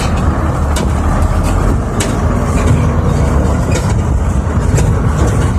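Heavy diesel engine of a 320-class excavator running steadily with a deep rumble, with a few sharp clanks scattered through.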